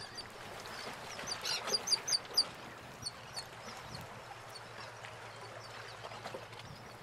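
Water birds calling: a quick run of five or six short, high calls about a second and a half in, then a few more shortly after, over steady outdoor background noise.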